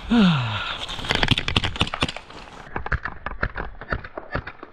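A short cry falling in pitch, then a run of irregular sharp cracks and clicks from airsoft gunfire, densest in the first half and thinning toward the end.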